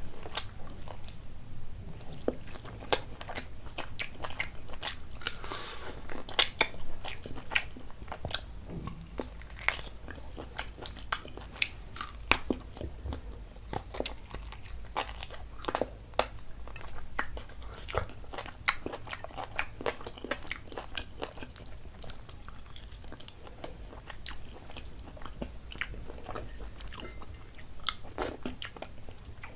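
Close-up eating sounds: a person chewing and biting into a curry-and-rice meal, with many small wet clicks and mouth sounds and occasional crunches.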